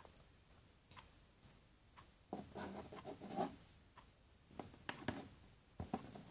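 Faint rubbing and scraping with a few light taps as fingers and a small plastic spoon work at a plastic cup of foamy mixture and the side of a cardboard box. A longer scraping stretch comes about two and a half seconds in.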